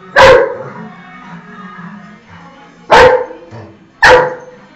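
German shepherd barking: one loud bark at the start, then after a pause of a couple of seconds two more about a second apart.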